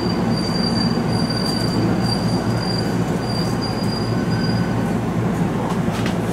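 Subway train running in a tunnel, heard from inside the car: a steady rumble of wheels and running gear, with a thin, high, steady wheel squeal that stops about five seconds in.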